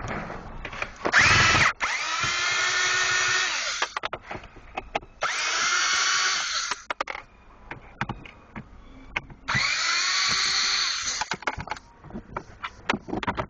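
Cordless screwdriver running in three bursts, each lasting one and a half to three seconds, as it backs out the glovebox screws. Its motor whine rises in pitch as each burst spins up. Small clicks and handling knocks come between the bursts.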